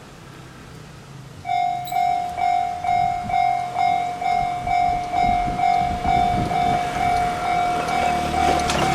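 A Japanese level-crossing warning bell starts up about a second and a half in and rings steadily at about two dings a second, with a low rumble underneath.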